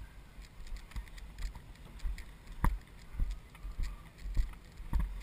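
Walking footsteps on dry dirt, a thud about every half second, over a low wind rumble on the microphone.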